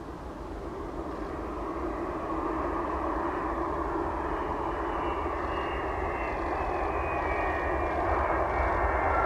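Boeing 767-300ER airliner's twin jet engines heard as it flares and touches down, growing steadily louder, with a high whine that comes in a few seconds in and slides slowly down in pitch as the plane passes.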